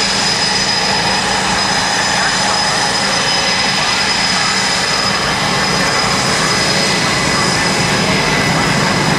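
Jet aircraft engines running steadily, a constant loud rush of noise with a thin high whine held over it.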